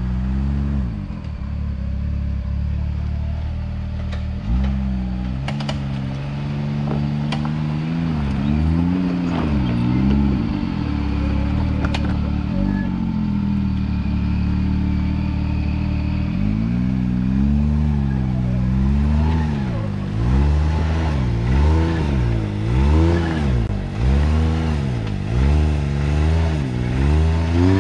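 Can-Am X3 side-by-side engine idling, then revved up and down over and over under load as the machine works up a rock face; in the second half the revs rise and fall about once a second. There are a few sharp knocks in the first half.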